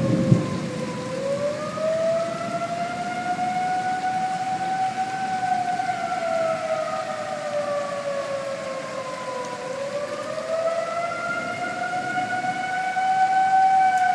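Outdoor tornado warning siren wailing, a single pitched tone that slides slowly down and back up about every eight to nine seconds. There is a brief low rumble at the very start.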